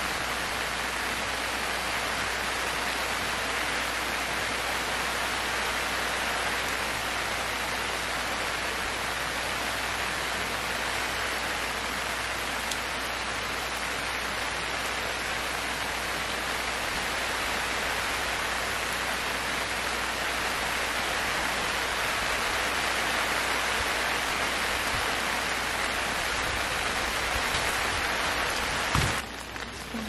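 Steady rain falling on the forest and pattering on the camp tarp overhead. It drops away suddenly near the end.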